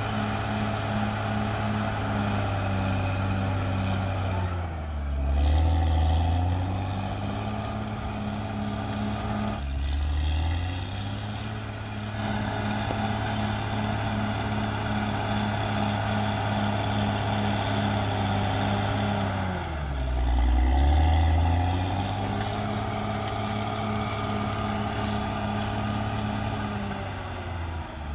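CAT D6R XL bulldozer's diesel engine running steadily, its note sagging and then picking back up twice, about 5 seconds in and about 20 seconds in, each time with a brief louder, deeper rumble. A faint steady high whine runs underneath.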